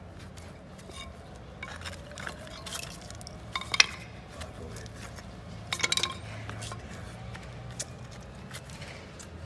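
Crumbled plaster and mortar being picked and pulled loose by a gloved hand, with small pieces scraping and clinking. There is a sharp clink about four seconds in and a short cluster of them around six seconds.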